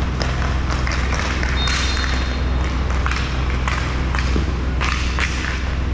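Inline roller hockey play on a plastic sport-court rink: a steady low rumble under scattered sharp clacks of sticks and puck, with a faint high tone lasting about a second near the middle.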